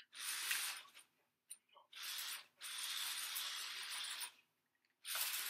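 Small remote-control toy car's electric motor and gears whirring in four abrupt bursts as it drives, the longest lasting nearly two seconds.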